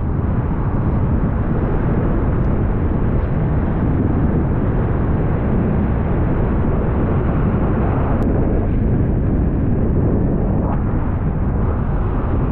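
Steady, loud wind rumble buffeting the microphone, with no distinct tones or events.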